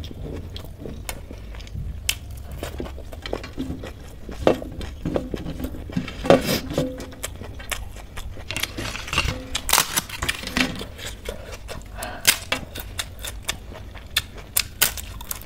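Close-up eating sounds: fingers mixing rice on a steel plate, chewing, and a crisp papad being broken, giving many small clicks, scrapes and crunches.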